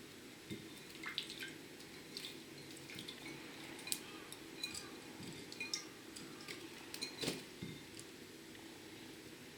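Small drips, splashes and clicks as a budgie bathes in a shallow water dish, with sharper taps on the dish about four seconds in and a little past seven, over a low steady room hum.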